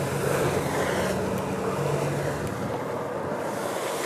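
Steady drone of a boat engine on the water, mixed with wind on the microphone and wave noise.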